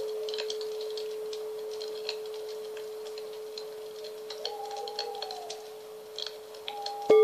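A singing bowl's low ring slowly fading away, with a fainter higher ring briefly over it midway and faint crackles and ticks in the background. Just before the end the bowl is struck again and rings out loudly with several overtones.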